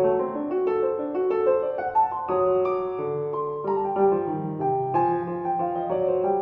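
Background piano music: a gentle melody of quick flowing notes over a lower accompaniment.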